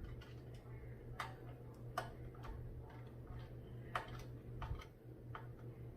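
Light, irregular clicks and taps as computer parts are handled and pushed into place during a PC build, over a faint steady low hum.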